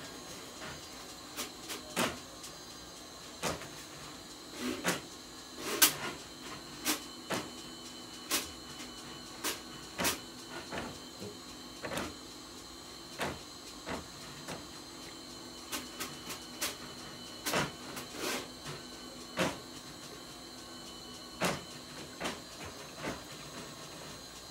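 Electric flexible-shaft drain rodder running with a steady motor whine, with irregular sharp clicks and knocks about once a second, while a clogged kitchen floor drain is being cleared.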